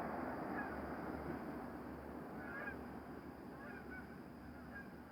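Geese honking faintly several times over a broad rushing noise with a low pulsing hum underneath; the noise fades steadily away.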